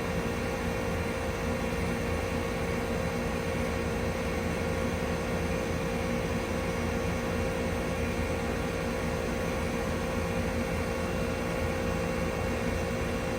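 1999 Trane XE1000 heat pump running steadily in cooling mode: the compressor and condenser fan give a constant hum with a steady tone over an even rush of air.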